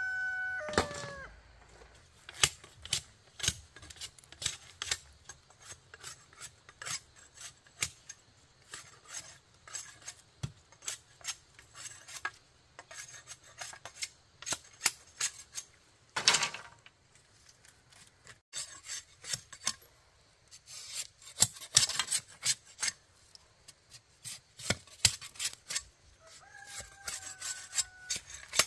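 Irregular short scraping and knocking strokes of hand work on bamboo. A rooster finishes crowing at the start and crows again near the end.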